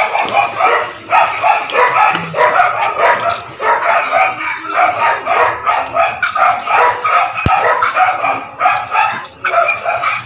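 A dog barking rapidly and without a break, about three short barks a second. One sharp click cuts through about seven and a half seconds in.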